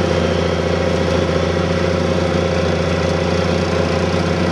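Allis-Chalmers D-19 tractor engine running steadily under load while pulling a plow, an even, unchanging drone.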